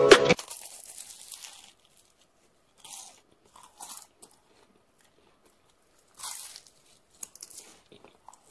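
Crisp, flaky puff-pastry shells crunching in short, scattered bursts as a fork cuts into them.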